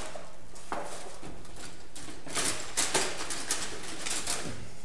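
Drawing instruments being handled on a drawing board: a run of light clicks and rustles, mostly in the second half.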